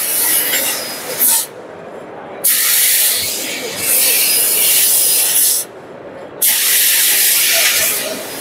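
Fiber laser tube-cutting machine cutting a pattern into a metal tube: the assist gas hisses from the cutting head in long stretches, cutting off sharply twice for about a second between cuts.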